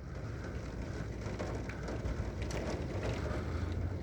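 Wind picking up at the leading edge of an approaching thunderstorm, rumbling steadily on the microphone, with faint scattered ticks above it.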